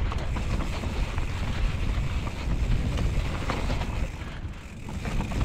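Wind buffeting an action camera's microphone during a fast downhill mountain-bike descent, mixed with low rumbling and rattling from the bike's tyres and frame over rock slabs and loose dirt. It eases briefly about four and a half seconds in.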